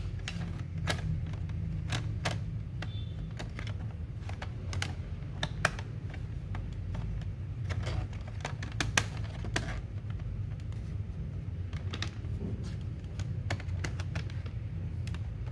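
Irregular sharp plastic clicks and snaps from handling a laptop, as its plastic bottom cover is pressed back into place, over a low steady hum.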